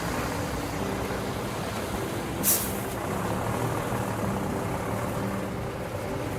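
Heavy diesel demolition machinery running steadily, with one short, sharp burst of noise about two and a half seconds in.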